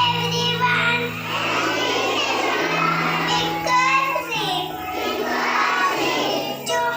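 A children's song: child voices singing over an instrumental backing with held bass notes that change every second or two.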